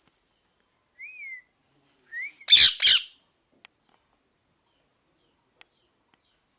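Parrot calling: a short whistled note that rises and falls about a second in, a rising whistle, then two loud harsh squawks in quick succession.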